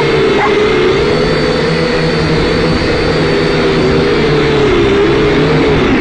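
Syma X5C quadcopter's small electric motors and propellers buzzing with a steady high whine whose pitch wavers gently as the throttle shifts.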